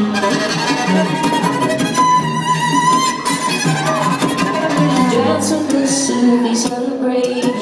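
Live concert music in an instrumental passage between sung lines: bowed violins of a string section playing sustained, wavering lines, heard through an audience recording.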